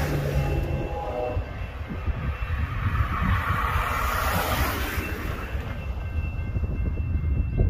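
A distant diesel locomotive horn ending about a second in, then a car driving past close by on the road, over a low steady rumble.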